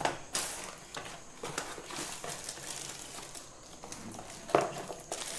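Cardboard box and plastic packaging being handled: rustling and scraping with small clicks as a bendable-leg tripod in a plastic bag is slid out of its box, with a louder bit of handling about four and a half seconds in.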